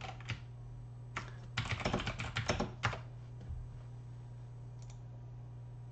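Typing on a computer keyboard: a couple of single keystrokes, then a quick run of keystrokes from about one and a half to three seconds in, over a faint steady low hum.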